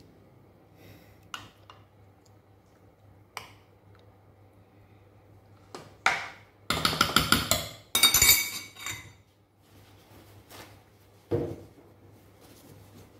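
Metal spoon clinking and scraping against a metal cooking pot and a glass baking dish as sauce is spooned out. A few single clinks come first, then a loud run of quick scraping clinks about six seconds in that lasts some three seconds, and one more knock near the end.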